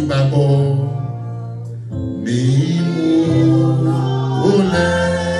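Gospel music: a voice singing over a steady bass line and guitar.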